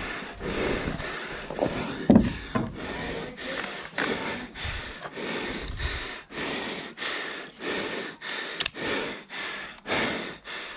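An airsoft player on the move, with rhythmic noisy strokes of footfalls and hard breathing at about two and a half a second.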